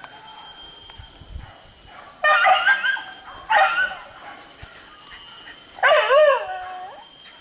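Hunting dogs baying while chasing wild boar: a few loud, wavering yelping calls, the last one longer and sliding down in pitch.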